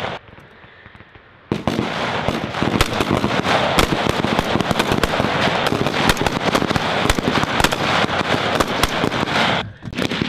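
Rifle fire from a line of shooters on a range. Many sharp shots come rapidly and irregularly, overlapping, starting about a second and a half in after a quieter moment, with a brief lull just before the end.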